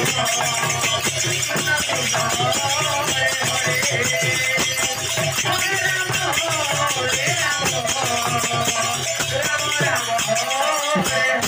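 Live kirtan music: a large double-headed barrel drum beaten by hand, with small brass hand cymbals jingling in a fast, steady rhythm, and voices singing a wavering melody over them.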